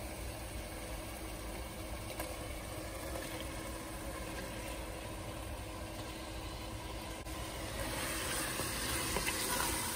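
Pot of watery onion and mint masala simmering on the stove, making a steady low hum and soft hiss. The hiss gets a little louder near the end as chopped tomatoes are stirred in with a wooden spoon.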